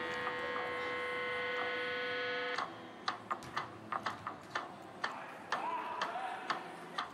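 A scoreboard buzzer sounds one steady, multi-toned note that cuts off sharply about two and a half seconds in. After it comes a run of sharp clicks and knocks, roughly three a second.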